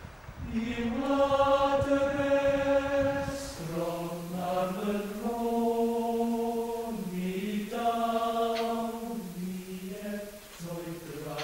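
Slow unaccompanied singing: long held notes that step up and down in a plain, chant-like melody.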